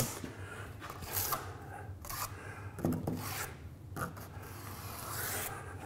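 Wide steel taping knife scraping wet joint compound along drywall in a series of irregular strokes, taking the excess mud off beside a freshly coated inside corner.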